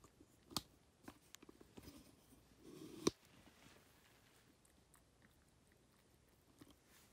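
Ragdoll cat eating soft wet pâté from a ceramic bowl: faint chewing with scattered small clicks, and one sharper click about three seconds in. The later seconds are quieter.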